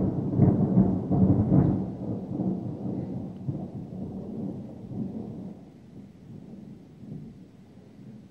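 Thunder: a loud peal with sharp cracks in the first two seconds, rolling on into a rumble that dies away about six seconds in.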